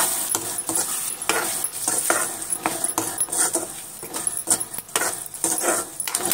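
A spatula scraping and knocking against a kadai in quick, irregular strokes, stirring masala-coated drumstick pieces as they fry, over a steady sizzle.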